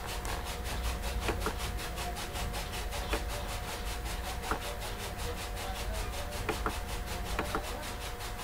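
Steady room noise: a low hum with a faint steady tone above it, and a few faint clicks and rubbing sounds scattered through it.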